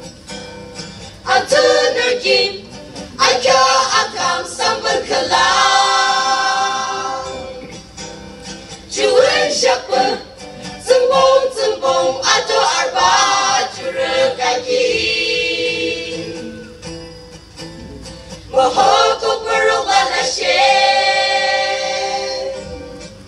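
A small choir, mostly young women with a few men, singing together in phrases of long held notes, with quieter stretches between the phrases.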